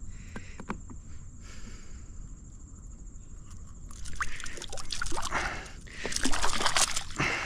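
A bass thrashing in a landing net at the water's surface, splashing in two loud bursts from about four seconds in, after a few quiet knocks and clicks.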